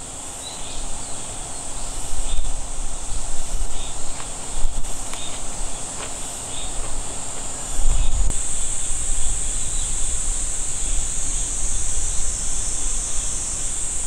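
Outdoor summer ambience: a steady, high-pitched insect buzz, with wind rumbling on the microphone; both grow louder about halfway through.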